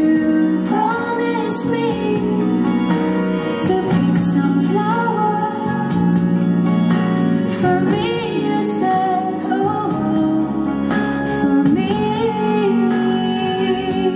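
A woman singing a song live into a handheld microphone over instrumental accompaniment, holding long notes with vibrato.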